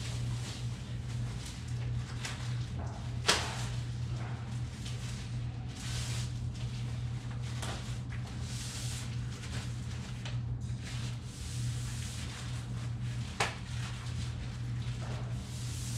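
Plastic vertical-blind vanes being handled, giving scattered light clicks and rustles. Two sharper clicks come about three seconds in and again about thirteen seconds in, over a steady low hum.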